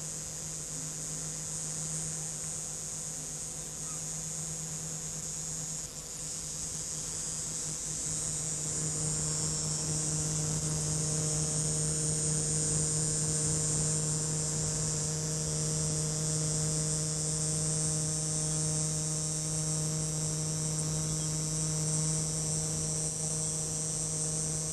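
Steady high-pitched chorus of insects over a low steady hum, growing louder about eight seconds in.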